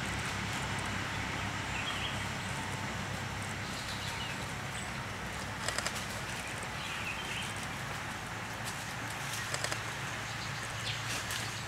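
Outdoor ambience: a steady hiss with a low hum underneath, faint bird chirps now and then, and two brief runs of three quick clicks, about halfway through and near the end.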